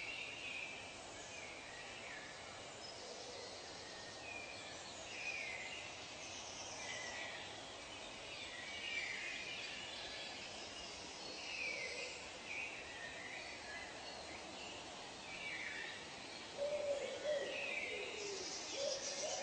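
Wild birds calling in a forest, many short chirps and whistles over a steady background hiss. About three-quarters of the way in, a lower-pitched repeated call joins and the sound grows louder.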